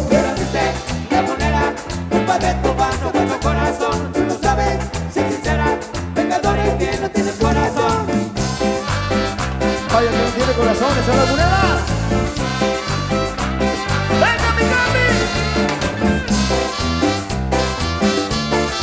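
Cumbia band playing live: an instrumental stretch with a steady beat and a repeating bass line under melodic lines.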